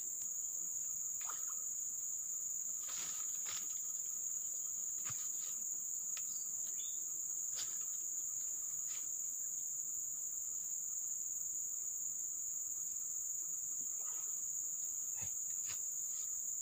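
Steady, high-pitched chorus of insects droning without a break, with a few faint clicks and rustles scattered through it.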